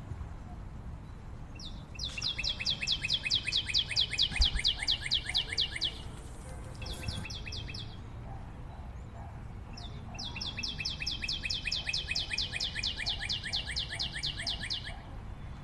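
A bird's rapid trill: long runs of evenly spaced high notes, about five or six a second. One run comes a couple of seconds in and a second comes in the last third, with a short burst between them.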